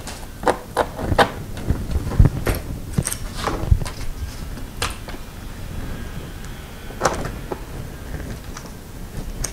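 Metal saw chain links clinking and the chainsaw's bar and body knocking on the bench as a new chain is worked onto the bar and drive sprocket by hand: a string of irregular clicks with a couple of dull thumps around two and four seconds in.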